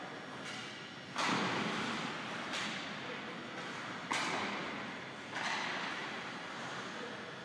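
Ice hockey pucks and sticks making four sharp cracks about a second and a half apart, the second one weaker, each ringing on in the echo of a large ice arena, over the steady scraping noise of the rink.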